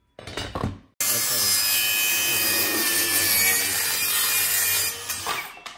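Compact 20-volt cordless circular saw with a 5.5-inch blade cutting through a thin board: a loud, steady high motor whine over the cutting noise that begins suddenly about a second in, runs for about four seconds, then winds down. Just before the cut, a brief sound falling in pitch.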